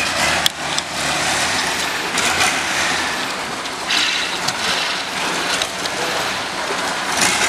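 A motor vehicle in motion: a steady run of engine and road noise, with a few brief knocks.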